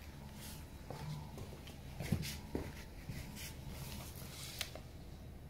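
A few short scuffs and taps of boots on stone paving as a person gets up from a stone step and walks away, over a low steady background rumble; the clearest taps come about two seconds in, half a second later, and near the end.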